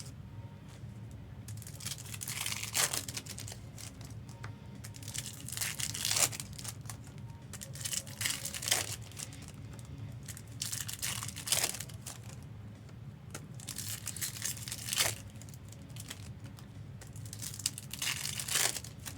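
Trading-card pack wrappers crinkling and tearing by hand as packs are opened, in about half a dozen short rustles a few seconds apart.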